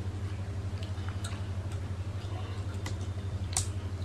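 Close-up eating sounds: scattered soft clicks and smacks of chewing and of fingers working rice and curry, with one sharper click about three and a half seconds in, over a steady low hum.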